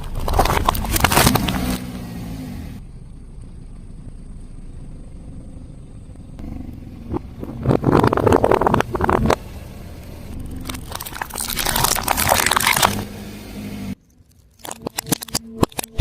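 A car tyre rolling over and crushing crunchy objects, in three bursts of crackling and crunching: about a second in, around eight seconds and around twelve seconds. A low rumble from the car runs beneath, and a few sharp snaps come near the end after a sudden drop.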